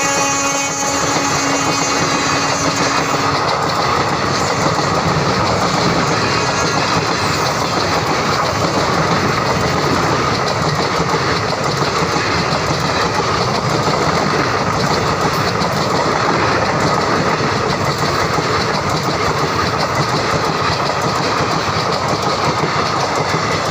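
A passenger express train hauled by a WAP-4 electric locomotive runs by, with a steady loud rumble and clatter of coaches on the rails. The locomotive's horn trails off in the first few seconds.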